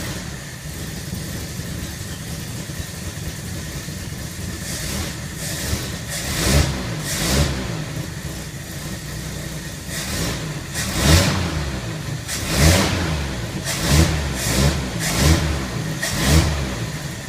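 1950 Hudson Commodore's 262 straight-six flathead engine running just after starting, its throttle blipped in a series of short revs, mostly in the second half. It runs only roughly, with the choke set far lean to keep it going; the owner suspects worn carburettor metering rod seats.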